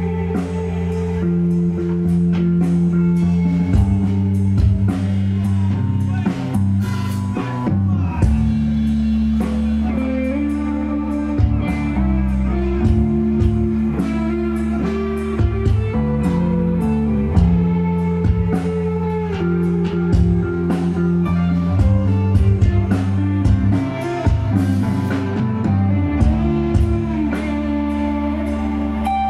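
Live rock band playing an instrumental passage: electric guitar and bass guitar holding long, slowly changing notes over a steady drum-kit beat.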